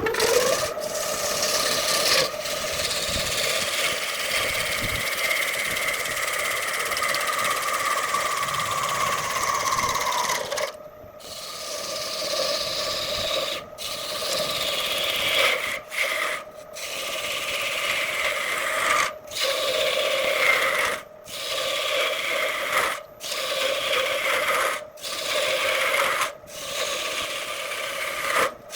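An electric power tool working wood: a steady motor whine mixed with abrasive scraping of the wood. From about eleven seconds in it is broken every second or two by short, sudden gaps.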